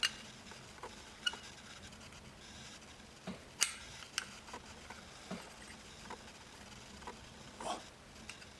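Sparse light clicks and taps, about half a dozen, from the metal and plastic parts of a dismantled automatic belt tensioner being handled, the sharpest about three and a half seconds in.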